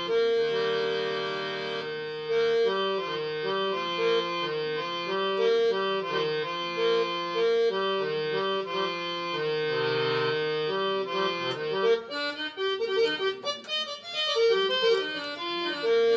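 Casio CTK-3500 digital keyboard playing its harmonium tone: a reedy melody of sustained notes over held lower notes, turning to quicker, shorter notes near the end.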